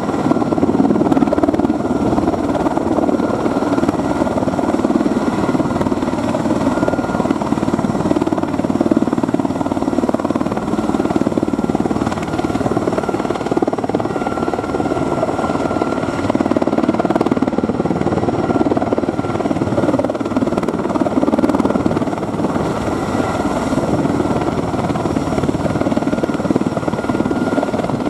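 Erickson S-64 Air Crane heavy-lift helicopter running steadily and loudly. Its rotor and turbine engines make a dense noise, with a thin steady high whine on top.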